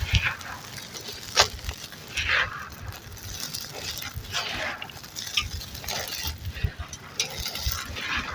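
Dry, gritty chunks of dirt crumbling and crunching, in irregular crackly bursts with a few sharper cracks, the loudest about a second and a half in.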